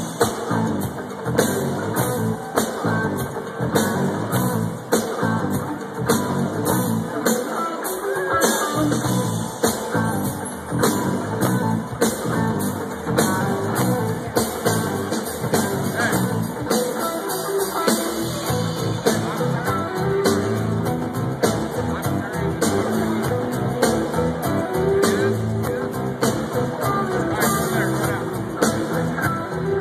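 Live band playing electronic rock on drum kit, electric guitar and bass, and keyboards, with a steady beat, heard from the crowd.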